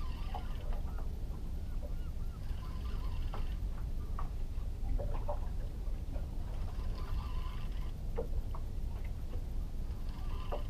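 Wind rumbling on the camera microphone. A multiplier fishing reel is wound in short bursts about four times as a fish is pumped up on a bent rod, with light clicks between.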